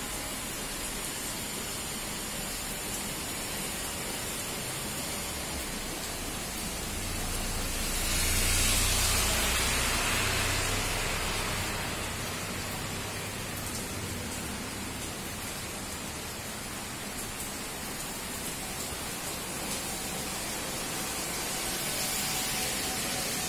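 Steady heavy rain falling on a road, roof and garden plants. It swells louder for a few seconds about a third of the way through, with a low rumble under it, and rises slightly again near the end.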